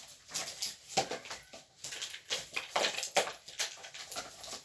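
Rustling and crinkling of a shopping bag being rummaged through by hand, in irregular bursts.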